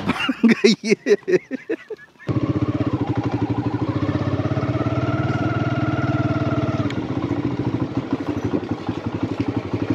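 Small motorcycle engine running while being ridden, starting abruptly after a couple of seconds of brief voice-like sounds. Its pitch climbs as it accelerates, then drops about seven seconds in.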